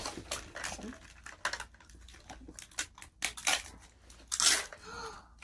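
Plastic wrapping of a surprise toy capsule crinkling and tearing as it is pulled open by hand, in irregular rustles with a louder rip about four and a half seconds in.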